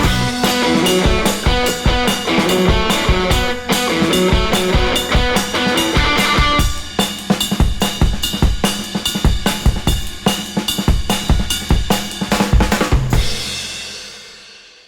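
Background music with a steady drum-kit beat. The melody drops away about halfway, leaving mostly drums, and the music fades out near the end.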